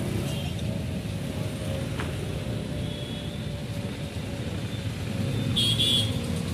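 Steady rumble of road traffic and a running vehicle engine, heard while moving along a road. A brief high-pitched beep comes near the end.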